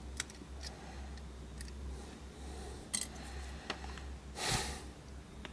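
Faint, sharp clicks and taps of tweezers and small tools against the speaker's plastic housing and circuit board, about half a dozen spread irregularly over a few seconds. A short hissing rush about four and a half seconds in, over a steady low hum.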